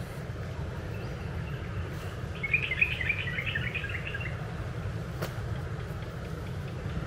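A small bird twittering in a quick run of high chirps for about two seconds, a few seconds in, over a steady low outdoor rumble, with a single sharp click near the end.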